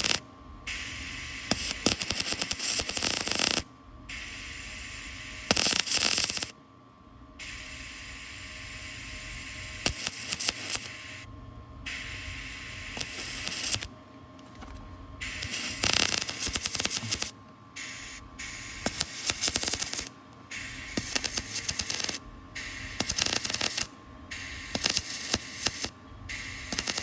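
Electric arc welding on a GMC truck frame: the arc crackles and sputters in short bursts, stopping and restarting about every second or few, as a series of short welds or tacks is laid.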